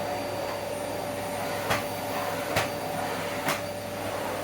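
Small cylinder vacuum cleaner running steadily as its floor head is passed over carpet to pick up spilled salt. There are three sharp clicks about a second apart.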